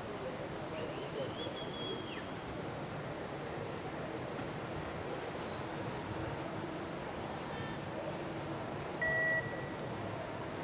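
Rushing whitewater of an artificial slalom channel, a steady rush. A short electronic beep sounds once, about nine seconds in.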